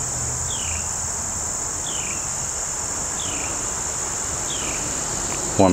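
Steady, high-pitched chorus of insects, with a short falling chirp repeated four times about every second and a quarter.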